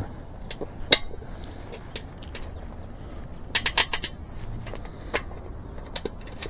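Scattered sharp clicks and light knocks from handling an e-bike wheel and tire while the inner tube's valve stem is worked out of the rim: one sharp click about a second in, then a quick cluster of several clicks a little past the middle.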